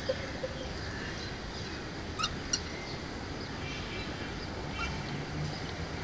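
Cockatiels chirping: two short, sharp chirps a little over two seconds in, then a few faint, thin whistled notes, over a steady outdoor hiss.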